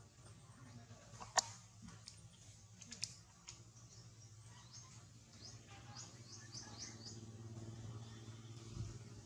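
Faint outdoor ambience: a small bird gives a quick run of short, falling chirps about six seconds in, and a single sharp click sounds about a second and a half in.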